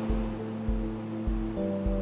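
Calm background music: held chords that change about three-quarters of the way through, over a soft low pulse roughly every 0.6 seconds.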